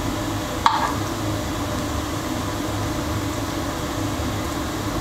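Steady low background hum, with one short clink of a metal spoon against a ceramic baking dish about a second in.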